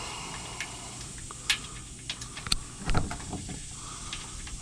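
A few sharp clicks and knocks of metal bolts being handled and set back into their holes, the clearest about one and a half, two and a half and three seconds in.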